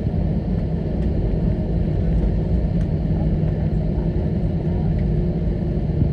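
Steady low rumble inside an Airbus A321neo cabin as the airliner taxis to the gate after landing, with a steady hum under it.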